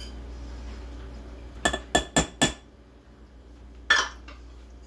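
A measuring cup knocked four times in quick succession against the rim of a stainless steel mixing bowl, tapping out the last of the cream, then one more sharp clink about four seconds in.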